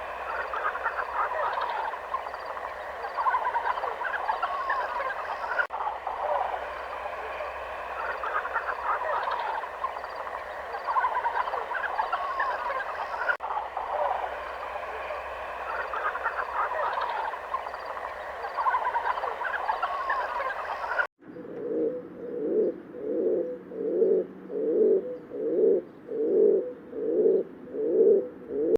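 A dense, continuous chorus of many animals calling at once, then after a sudden cut about 21 seconds in, pigeons cooing in a steady rhythm of a little over one coo a second.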